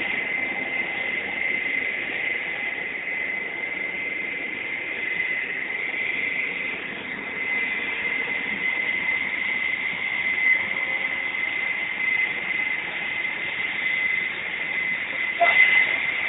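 Steady whine of an aircraft turbine: one high tone held over a constant rushing noise.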